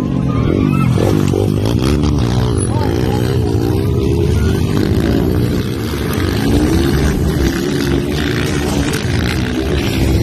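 Motocross dirt bike engines revving, their pitch rising and falling repeatedly as the riders work the throttle and gears.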